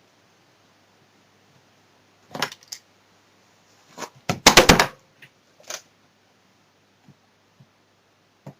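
A few sharp knocks and clatters of small hard objects being handled, with the loudest rapid cluster about halfway through and a few faint ticks near the end.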